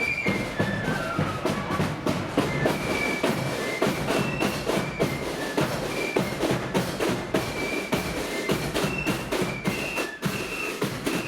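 Marching flute band in the loyalist blood-and-thunder style playing a tune: flutes carry a high melody over heavy bass drum and rapid snare drumming.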